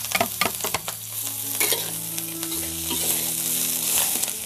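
Chopped kencur (aromatic ginger) leaves sizzling as they fry in hot oil in a metal wok. A metal spatula scrapes and taps the pan again and again as it stirs them in with the sautéed garlic, shallot, chilli and anchovies.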